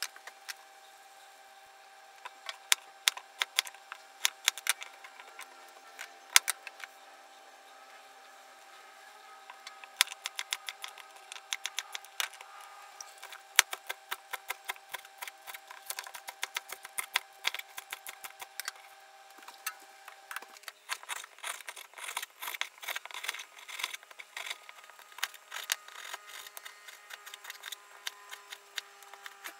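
Kitchen knife chopping on a plastic cutting board: irregular sharp knocks of the blade through daikon radish and green onion, becoming faster and denser about two-thirds through as meat is sliced. A faint steady hum underneath.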